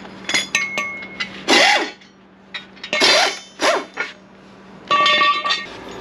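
Ratchet and long pipe extension tightening the pinion nut on a truck's rear axle differential: a few light metallic clicks, then four loud pitched metal creaks, some falling in pitch, as the nut is pulled down against the crush sleeve to set pinion bearing preload.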